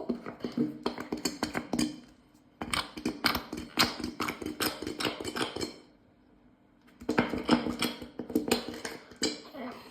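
Quick runs of small clicks, taps and knocks from hands handling plastic objects (a soap bottle and fidget toys in a tub), stopping for about a second near the middle.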